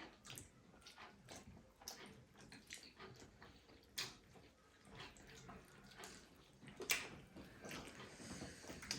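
Faint eating sounds: scattered soft clicks and smacks of people chewing and handling food, with a slightly louder click about four seconds in and another near seven seconds.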